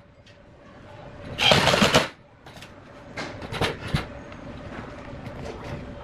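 A small homemade drill runs in one short burst of about half a second, followed by a few scattered knocks and clicks of tool handling, over a faint steady hum.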